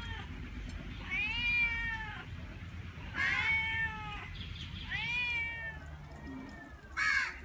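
A cat meowing over and over: four drawn-out meows, each about a second long, rising and then falling in pitch, with a shorter one near the end.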